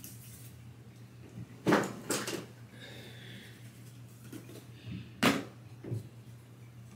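Small objects being handled: a few sharp clicks and knocks, a cluster about two seconds in and another around five seconds in, over a steady low hum.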